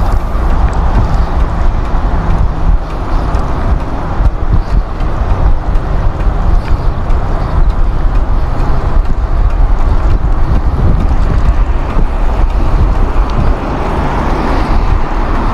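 Wind buffeting the microphone of a handlebar-mounted action camera on a moving bicycle, a loud, uneven rumble, with road traffic alongside.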